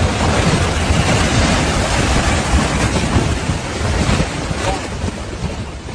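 Loud, steady rush of wind and water noise, with wind buffeting the microphone, easing a little near the end.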